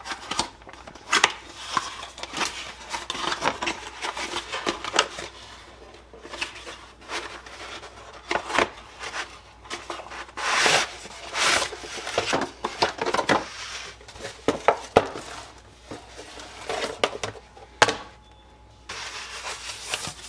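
Cardboard box being opened by hand and its cardboard packing slid out: irregular scraping, rubbing and rustling of cardboard, with a few sharp knocks.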